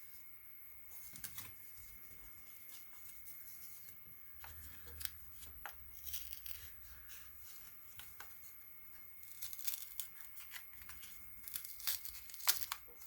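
Fingers picking at and peeling small packaging off a mailed card: faint scattered tearing and crinkling crackles that get busier near the end.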